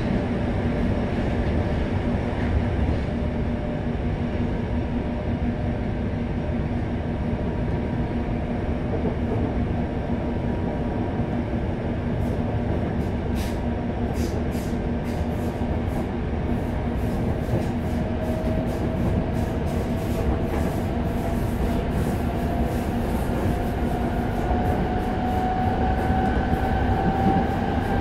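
Running noise of a Yokohama Municipal Subway 3000A train with Mitsubishi GTO-VVVF control, heard inside the passenger car: a steady rumble of wheels and motors with a low hum. In the second half, a whine rises slowly in pitch, with scattered light clicks.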